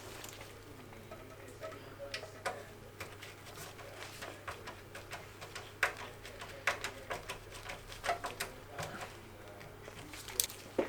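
Irregular light clicks, taps and rattles of computer parts being handled and fitted together by hand during a PC assembly, over a steady low hum.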